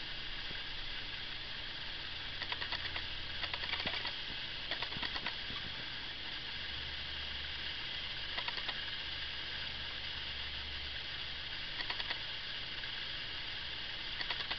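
Steady hiss with several short runs of quick clicks a few seconds apart, from computer controls being worked while the on-screen picture is zoomed and panned.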